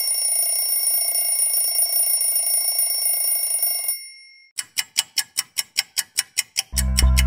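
A steady, high electronic ringing made of several held pitched tones. It cuts off about four seconds in, and after a brief gap comes a rapid, even series of sharp pulses, about five a second, like a bell or alarm ticking. Near the end, music with a deep bass comes in.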